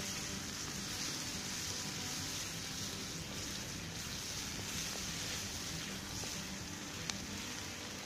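Bacon, tomatoes and onion frying in butter in a skillet over an open wood fire, sizzling steadily. One sharp pop about seven seconds in.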